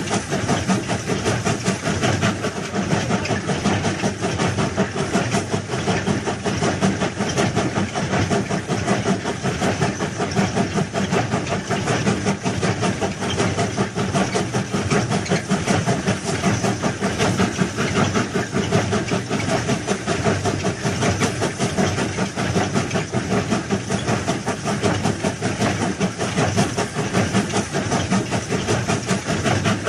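Heavy railway track-laying machine running steadily, its engine giving a loud, even, rattling drone that does not change.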